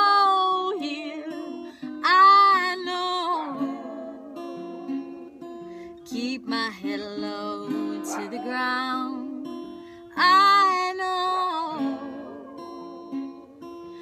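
A woman singing a song with long, sliding sung phrases over a played acoustic guitar.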